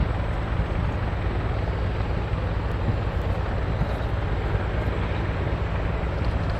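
Bell CH-146 Griffon helicopter running nearby: a steady rushing of rotor and turbine noise, with a fast low pulsing from the rotor.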